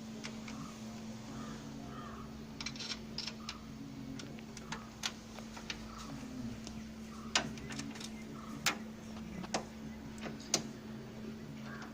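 Small metal clicks and taps, irregular and scattered: a graphics card's bracket being screwed to a PC case with a screw and screwdriver. A steady low hum runs underneath.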